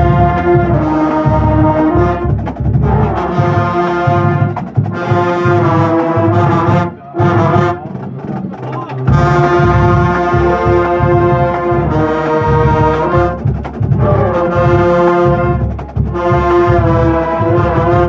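Marching band playing loudly: the brass holds long chords in phrases of a few seconds over a heavy low beat, with a short break about seven seconds in before the brass comes back in.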